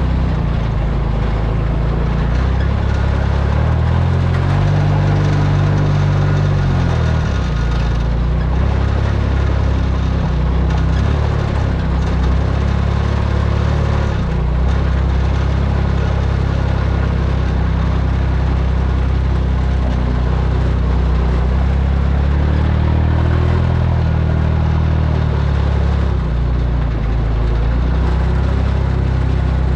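Delivery truck's engine running while driving, its low note rising and falling several times as the truck speeds up and slows, with steady road noise.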